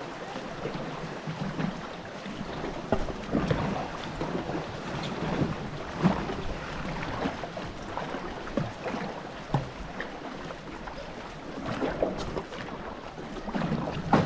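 Tandem racing canoe under way: repeated splashes of the paddle strokes over water rushing along the hull, with wind on the microphone.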